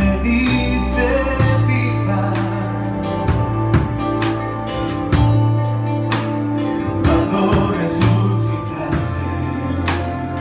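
Live church worship band playing a slow worship song: drum kit with regular cymbal and drum hits over long held bass and keyboard notes, with singing.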